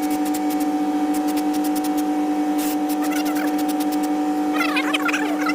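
A steady machine hum, holding one pitch with a fast, even flutter and occasional clicks. Short bird chirps come in over it about three seconds in.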